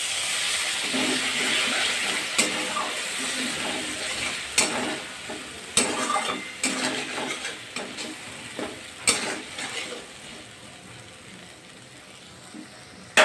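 Water splashed into a hot kadai of masala-coated potatoes sizzles while a metal spatula stirs and scrapes, knocking against the pan several times. The sizzle fades near the end, and one loud knock comes right at the close. This is the stage of frying the spice paste with a little water.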